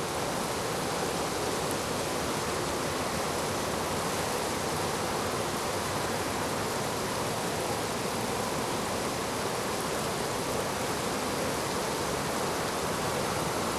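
Steady rush of fast-flowing river water.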